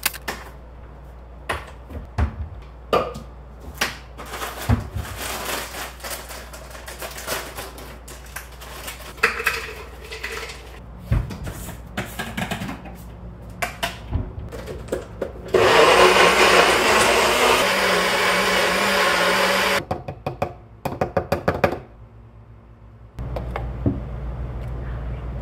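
Kitchen prep clatter of containers and utensils being handled, then a single-serve blender runs steadily for about four seconds, blending avocado, banana, spinach, whey protein and water into a thick smoothie, followed by a quick run of short pulses.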